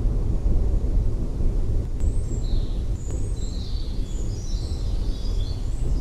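Birds chirping in short repeated calls from about two seconds in, over a steady low rumble.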